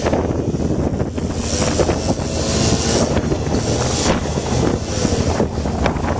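Off-road vehicle engine running steadily under heavy wind noise on the microphone.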